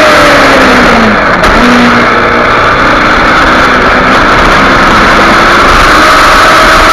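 Kawasaki Ninja 250R's parallel-twin engine at track speed, heard onboard under heavy wind noise. Its revs fall for about the first second as the bike slows into a corner, then climb steadily again as it drives through the bend.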